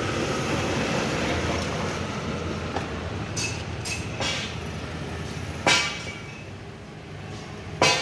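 A steady low rumble, like nearby road traffic, fading slowly, with a couple of sharp clicks near the end as the ignition coil is handled against the battery.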